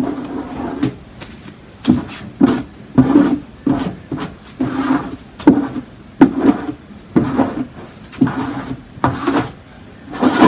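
Hand rubbing in repeated strokes, about one or two a second, across the surface of a cold wax and oil painting on a wooden cradled panel, pulling off paint loosened by Gamsol solvent.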